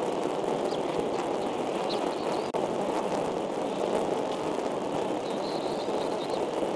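Steady outdoor rushing noise, with a few faint high bird chirps over it.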